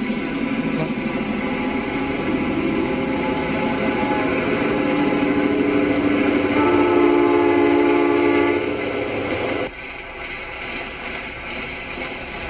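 A diesel passenger train rumbles past, and the locomotive's air horn sounds one chord for about two seconds, about six and a half seconds in. The sound then drops abruptly to the quieter rumble of a passing freight train.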